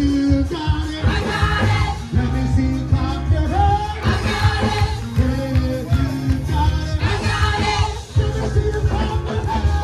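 Upbeat live praise music played loud through a PA: singers on microphones lead a song over a keyboard and a strong, steady bass-and-drum beat.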